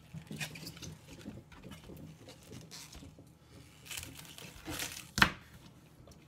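Kitchen knife cutting and handling green onions on a plastic cutting board: rustling of the stalks and a few knocks of the blade on the board, the loudest a sharp knock about five seconds in.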